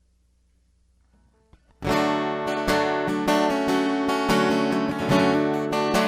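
Near silence, then an acoustic guitar starts strumming abruptly about two seconds in, with a steady run of chord strokes as a song intro.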